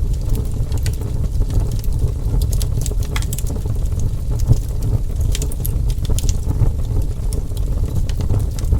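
Wood fire burning with a steady low rumble of flames and irregular sharp crackles and pops, clustered about a third of the way in and again past the middle.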